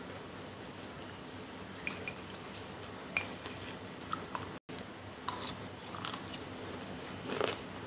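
Eating slate pencil powder mixed with banslochan from a glass bowl: a spoon clicking against the glass and crunchy chewing, as scattered short clicks and crunches, the biggest crunch near the end.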